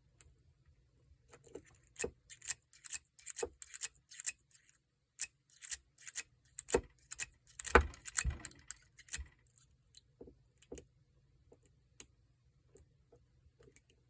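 Steel lock pick and tension bar working inside a Paclock 90A-PRO seven-pin padlock: irregular small metallic clicks and scrapes from the pins and keyway. The clicks are most frequent between about one and ten seconds in, and thin out to a few faint ticks near the end.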